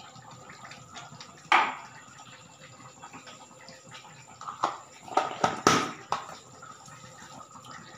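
Potato curry bubbling softly as it simmers in a steel kadai, with sharp metal clinks and scrapes of a steel spatula against the pan: once about a second and a half in, then several close together around five to six seconds in.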